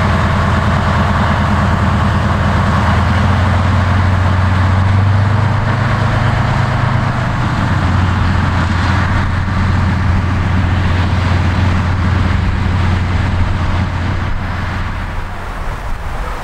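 SM30 diesel shunting locomotive's engine running as the locomotive moves off along the track. Its note steps up a little about five seconds in and settles back about two seconds later, then the sound drops away near the end.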